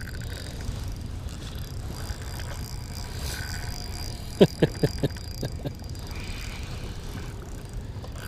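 Fishing reel being cranked during a fight with a hooked lake trout on light tackle, over a steady rumble of wind and water. About halfway through comes a quick run of about six sharp knocks.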